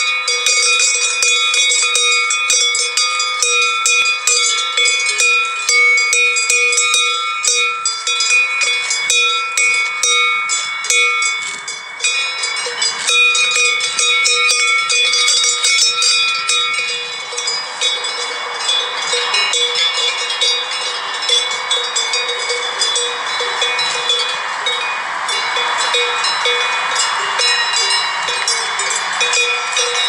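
Many metal sheep bells clanking and jangling irregularly as the flock moves. From about halfway the strikes grow sparser and a steady rushing noise rises under them.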